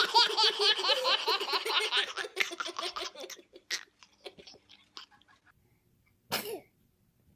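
A baby laughing in a fast run of high-pitched giggles for about three seconds, trailing off into a few faint small sounds. A short burst of noise follows near the end.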